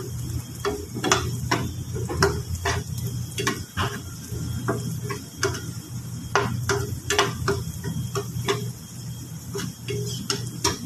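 Metal spatula scraping and clinking against a wok, in irregular strokes about twice a second, as chopped garlic is stirred in hot oil and butter. A faint sizzle and a steady low hum run underneath.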